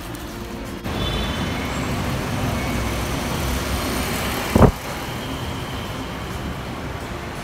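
Steady rumbling background noise of a busy airport terminal, with one loud thump a little past halfway, after which the noise is somewhat quieter.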